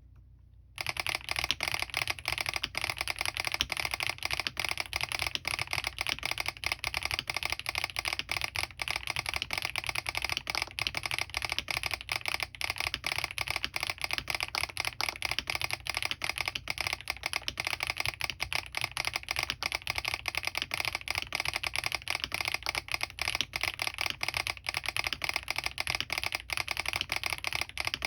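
Fast, continuous typing on a Smurve80 mechanical keyboard with Krytox-lubed HMX Catmint switches, an aluminium plate, full foam and stock doubleshot PBT keycaps, its solenoid clicking along with the keystrokes. The typing starts about a second in.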